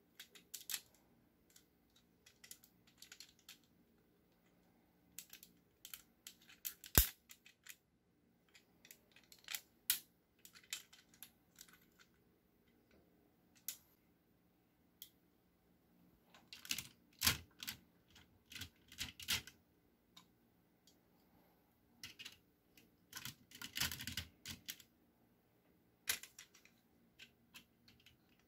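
Hard plastic parts of a DX Engine-Oh combining robot toy clicking and snapping as its vehicle pieces are handled and locked into place. Irregular light clicks, with one sharp snap about seven seconds in and short bursts of rattling clicks later on.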